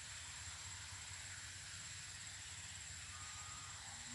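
Quiet riverside ambience: a steady faint hiss with a low rumble underneath and a thin, steady high-pitched tone. A faint short tone comes about three seconds in.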